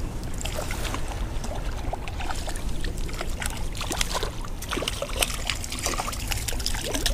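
Hooked trout splashing at the water's surface near the bank as it is reeled in, a run of irregular small splashes.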